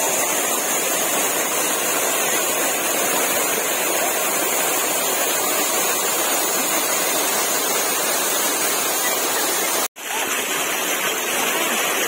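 Small waterfall pouring into a shallow rocky pool, a steady, loud rush of splashing water. The sound breaks off for an instant near the end and then resumes.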